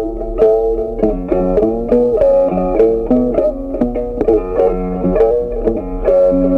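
Instrumental background music: a quick, picked melody on a plucked string instrument, with notes changing several times a second.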